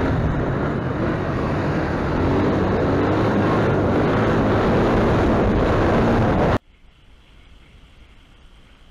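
Quad bike engine running under way, with wind noise on the microphone, getting a little louder about two seconds in. It cuts off abruptly near the end to a much quieter hiss.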